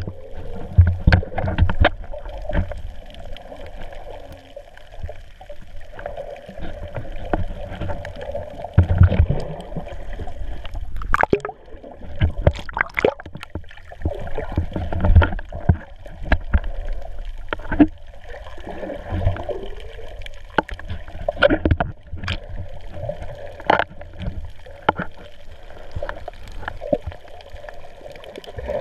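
Water heard with the camera under water: muffled sloshing and gurgling with bubbling, broken by many irregular knocks and low thumps.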